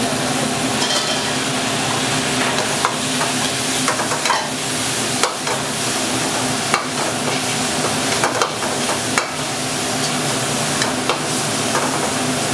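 Squid and basil stir-frying in a hot wok: a loud, continuous sizzle, with the metal spatula scraping and clacking against the wok at irregular moments over a steady low hum.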